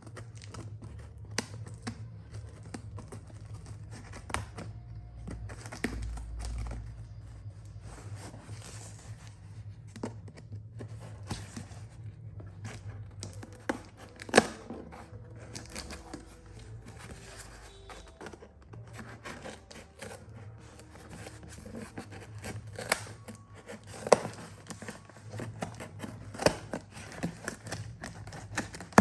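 A parcel being opened: cutting, tearing and crinkling of the packaging, with scattered sharp clicks and knocks. The loudest knocks come about 14 seconds in and again about 24 seconds in.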